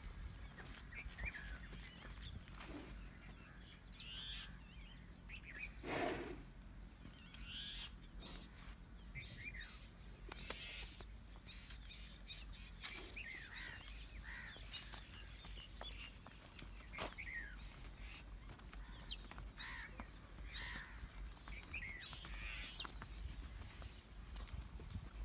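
Faint birds chirping and calling, scattered short chirps throughout, over a low steady rumble of outdoor ambience. One louder short noise comes about six seconds in.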